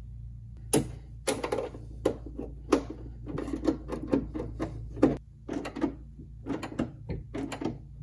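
Ratchet and socket tightening the door-handle mounting nut inside a C3 Corvette door: repeated short ratcheting strokes, about two or three a second, each a sharp click.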